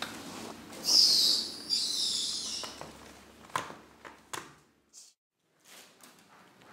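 A kitten hissing twice in quick succession, each hiss about a second long, guarding its cloth toy from another cat. A few soft knocks follow as it settles on the chair.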